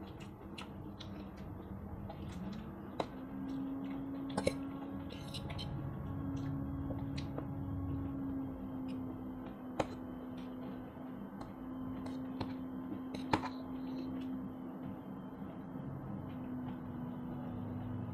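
Two people eating noodles and fried rice: noodles slurped and chewed, with sharp, scattered clicks of metal forks against steel plates, a few louder than the rest.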